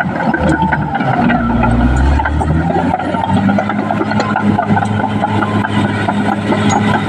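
Caterpillar D6R XL bulldozer's diesel engine running steadily, its pitch dipping and rising again with a heavy low surge between about one and three seconds in, over scattered clanks and knocks.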